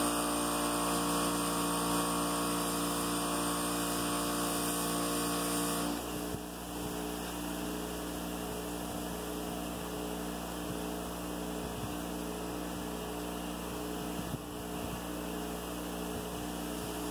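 Electric bench buffer running with a steady motor hum while an engine valve, spun in a cordless drill, is polished against its abrasive wheel. About six seconds in the sound drops quieter as the valve comes off the wheel, and the motor hum carries on.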